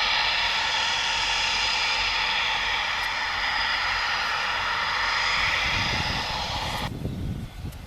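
Eurofighter Typhoon's twin Eurojet EJ200 turbofans running loud and steady, a jet whine with a low rumble building under it. The high whine cuts off abruptly about seven seconds in.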